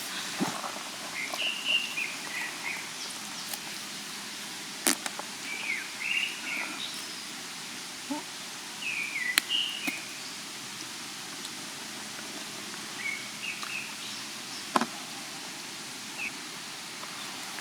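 Small birds chirping in short bursts of a few rising-and-falling notes, over a steady outdoor hiss. Three sharp clicks come about five, nine and fifteen seconds in.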